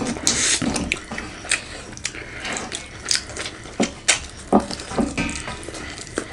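Close-miked wet eating sounds of daal bhaat: irregular smacks, squelches and clicks of chewing and mixing food.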